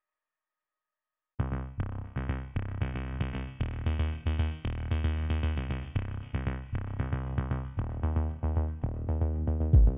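Silence for the first second and a half, then electronic background music starts: a steady drum-machine beat with synthesizer and heavy bass.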